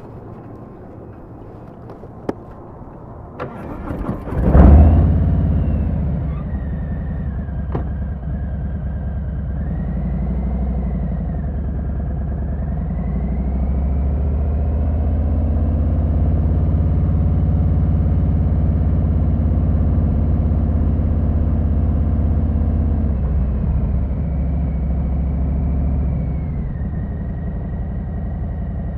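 2020 Harley-Davidson Sport Glide's V-twin being started: a click, the electric starter cranking for about a second, then the engine catching with a loud burst. It settles into a steady idle. The idle gets a little louder and faster, then eases back down near the end.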